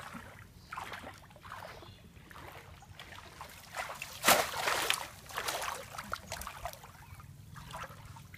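Shallow muddy water sloshing and splashing as a person wades and works a bamboo plunge basket through it, in irregular swishes with one sharper splash about four seconds in.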